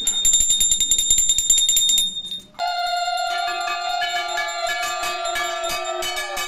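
Hand bell rung rapidly during a puja, about eight strokes a second with a steady high ring. About two and a half seconds in, the ringing briefly drops out and a sustained droning tone with several steady pitches comes in under the continuing bell strokes.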